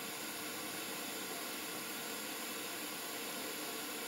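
Steady, even hiss with no distinct event: the background noise of the recording in a quiet room.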